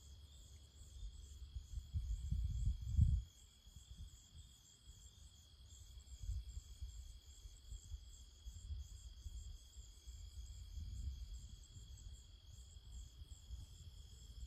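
A chorus of crickets chirping, a steady high trill with a faster pulsing chirr above it. Under it an uneven low rumble, loudest for about a second near two seconds in.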